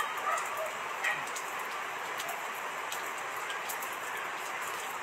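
A steady hiss, with soft rustles near the start and about a second in as pomelo segments are pulled apart and peeled by hand, and a few faint ticks.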